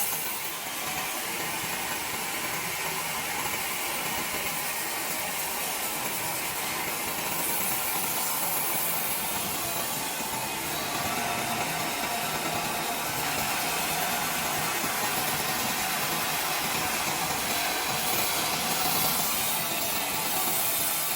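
Sawmill saw cutting through timber: a steady, hissing mechanical noise that holds at an even level throughout.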